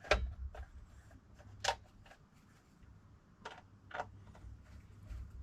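A few sharp clicks and taps of a screwdriver and screw against a metal motor casing as a screw is driven in to hold the motor's fan housing, over a faint low hum.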